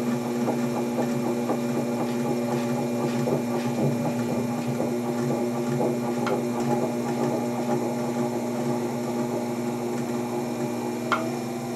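Electric potter's wheel running with a steady motor hum while clay is thrown on it, with a few faint ticks over it.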